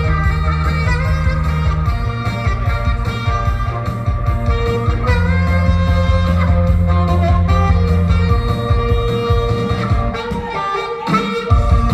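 Saxophone playing a pop melody with held notes and slides, over a band accompaniment with bass and guitar.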